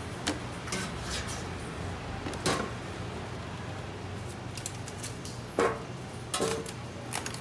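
Kitchen utensils clacking and scraping against a plastic cutting board and a stainless steel tray while fruit is cut. There are a handful of sharp knocks, the loudest about two and a half seconds in and again after five and a half seconds, over a steady low hum.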